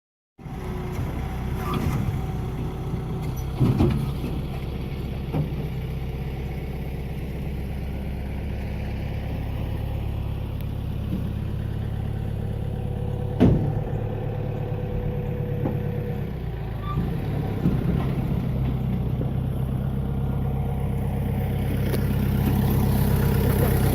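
A vehicle engine running steadily at low revs, with a few sharp knocks over it, the loudest about thirteen seconds in.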